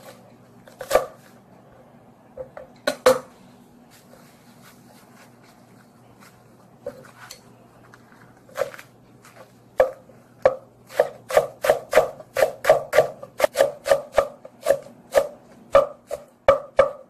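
Kitchen knife slicing a rolled bundle of perilla leaves on a wooden cutting board. A few separate knocks come first, then from about ten seconds in a quick, even run of cuts, roughly three a second.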